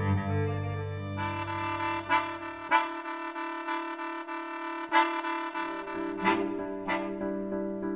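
Live chamber music of long held notes: a low note drops out about three seconds in, leaving sustained reedy chords, with a few sharp knocks cutting in now and then.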